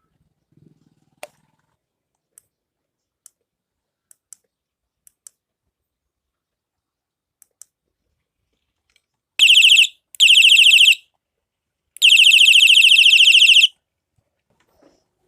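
Several faint button clicks, then the electronic horn built into a bicycle headlight sounds three times. It is a loud, shrill warbling tone, two short blasts followed by a longer one of about a second and a half.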